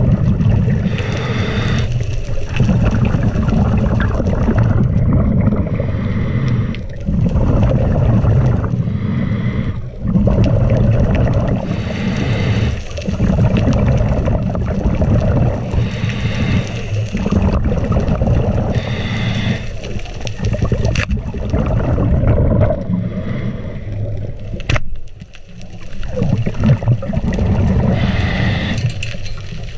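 Scuba diver breathing through a regulator underwater: a hissing inhale, then a long bubbling rush of exhaled air, the cycle repeating every few seconds.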